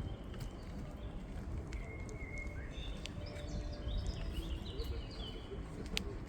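Small birds chirping in short repeated phrases over a steady low rumble, with a couple of sharp clicks.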